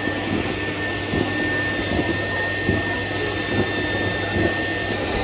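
Toy-stuffing machine's blower running steadily, blowing fluff through its metal nozzle into a plush toy: a constant rush of air with a thin steady whine over it.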